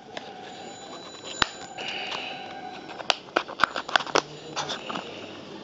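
Sharp plastic clicks and snaps from handling a Xiaomi Redmi 1S smartphone as its clip-on back cover is pried open: one click about a second and a half in, a short scrape, then a quick run of clicks in the second half.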